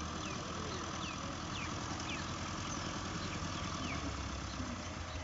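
Fiat 640 tractor's four-cylinder diesel engine running steadily. Short falling high chirps repeat over it about twice a second.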